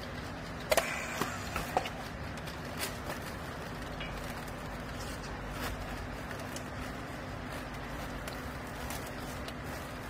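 Steady low machine hum at a hydraulic clothing baler. A few sharp clicks come about a second in, from a handheld battery strapping tool working the yellow plastic strap around the bale.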